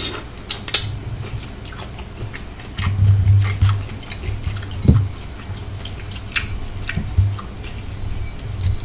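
Close-miked chewing of sautéed shrimp in sauce, with many sharp, wet mouth-smacking clicks over a low rumble of chewing.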